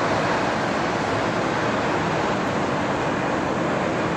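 Twin-engine widebody jet airliner climbing out overhead, its engines giving a steady, even roar.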